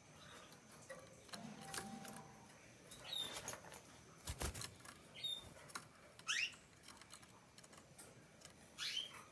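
Young canary practising its song: sparse, faint short chirps and squeaky whistles, one note rising steeply about six seconds in, among a few scattered clicks.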